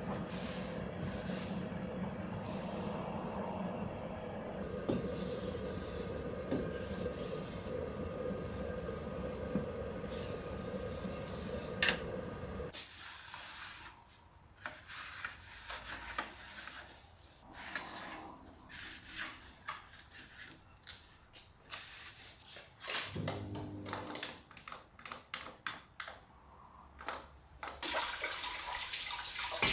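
A cloth scrubbing cleaning paste around the inside of a microwave oven, a steady rubbing over a low hum, which stops about thirteen seconds in. Quieter, separate wiping strokes follow as the glass door is cleaned, and near the end a kitchen tap starts running.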